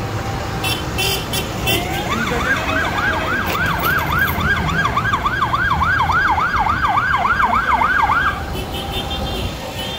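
A siren sounds a fast up-and-down wail, about three and a half sweeps a second, starting about two seconds in and stopping about two seconds before the end. Under it is the low running of passing tractor engines.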